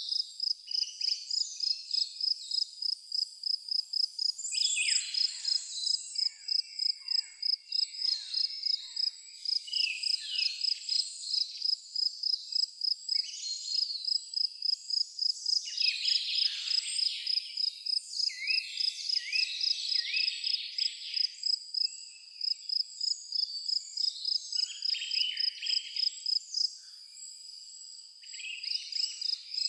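A cricket chirping in a steady, fast, even pulse, about four chirps a second, pausing briefly near the end, while several birds sing and call in short chirps and trills.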